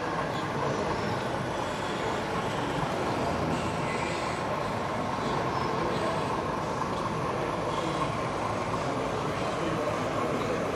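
Steady background noise of a busy exhibition hall, with a model train running on a layout.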